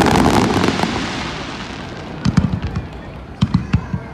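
Aerial fireworks bursting. A dense crackle fades over the first couple of seconds, then a cluster of sharp booms comes about two seconds in and several more sharp bangs near the end.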